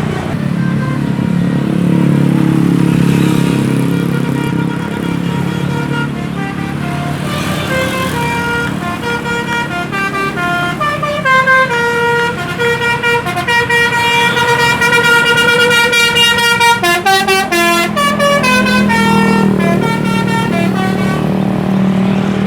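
Indonesian bus 'basuri' telolet horn playing a tune of quick stepped notes over the low rumble of the bus engine; the tune starts about a third of the way in, runs fastest about three quarters through and ends shortly before the end, leaving the engine.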